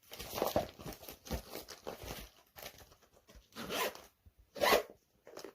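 A zipper being pulled back and forth, teeth rasping. A longer run of quick strokes lasts about two seconds, then come four shorter separate pulls.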